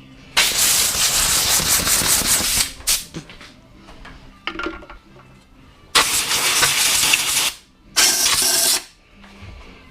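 Compressed air blowing in three blasts of hiss: a long one of about two and a half seconds, then one of about a second and a half, then a short one. This is typical of blowing out a small-engine air filter.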